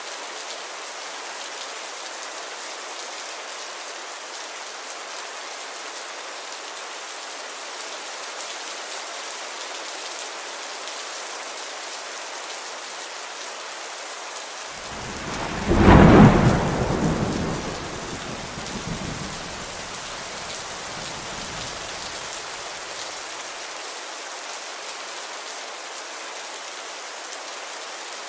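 Steady rain falling, with a single clap of thunder about halfway through that rumbles off over several seconds.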